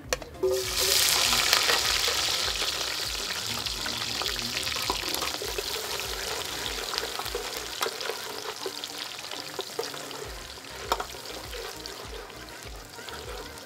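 Sliced onions dropped into hot palm kernel oil in an aluminium pot, bursting into a loud sizzle about a second in. The frying sizzle then slowly dies down while a spatula stirs and scrapes the pot.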